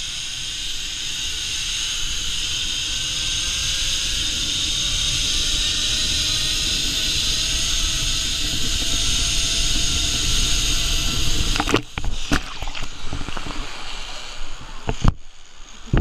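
Zip-line trolley running down the steel cable: a steady whir and rush that grows slowly louder, with a faint whine rising in pitch as the ride picks up speed. About twelve seconds in the run stops abruptly, followed by a few sharp knocks and clatters.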